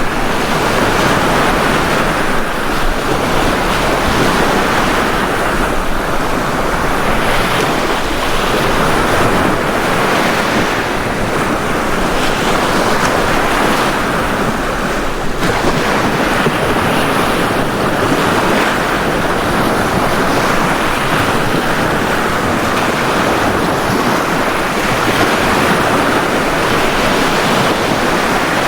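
Ocean surf washing onto a beach: a steady hiss of breaking waves that swells and eases every few seconds.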